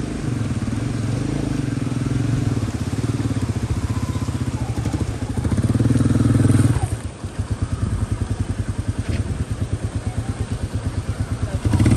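Royal Enfield motorcycle engine running at low revs with an even, pulsing thump while the bike is eased over rocks out of a river ford. It revs up briefly about six seconds in, then drops back to the slow thump.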